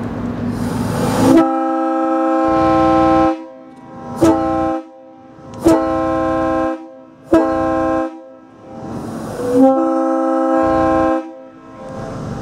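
Multi-chime locomotive air horn blown on compressed air: a rising hiss of air, then a long blast of several notes sounding together, three short blasts, and a second long blast near the end.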